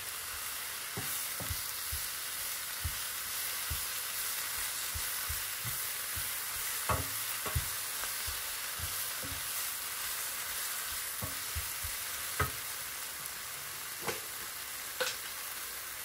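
Baby spinach sautéing in hot oil in a frying pan, a steady sizzling hiss, while a wooden spatula stirs it and knocks lightly against the pan now and then, most clearly around the middle and near the end.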